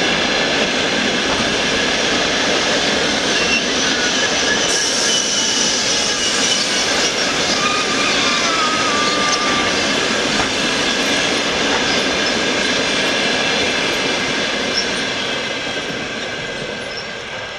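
Broad-gauge passenger coaches rolling past: a steady rumble of wheels on rail with thin, high squealing tones over it. The noise fades over the last few seconds as the end of the train goes by.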